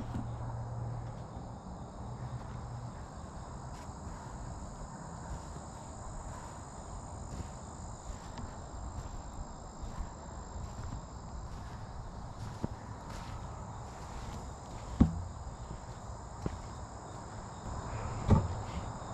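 A steady chorus of crickets and other insects, a high buzzing with a slow pulsing rhythm. A couple of sharp thumps, footsteps on the garden soil, come near the end.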